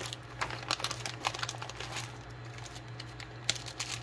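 Clear plastic parts bag crinkling as it is handled, with irregular light clicks of small metal hose fittings being picked up and set down on a workbench, over a steady low hum.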